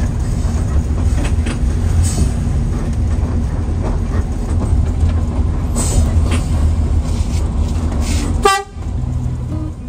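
Steady low rumble of a moving Mercedes-Benz OH 1521 coach heard from inside the cabin, with scattered faint knocks. Near the end a short sharp sound cuts in, and the rumble then drops away.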